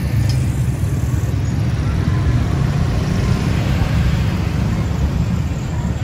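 Street traffic noise: motor vehicle engines running, a steady low rumble.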